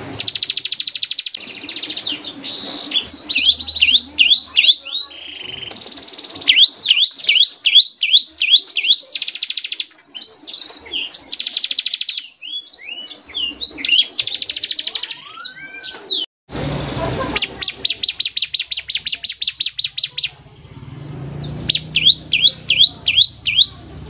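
Bar-winged prinia (ciblek) singing: long, very rapid trills of repeated high notes, the machine-gun-like 'ngebren' delivery, alternating with runs of quick downward-sweeping whistles. The song breaks off briefly about two-thirds of the way through, then resumes with another rapid trill.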